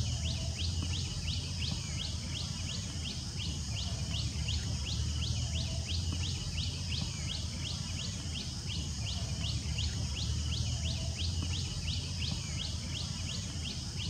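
Outdoor nature ambience: a short high chirp repeating evenly, about three times a second, over a steady high hiss and a low rumble.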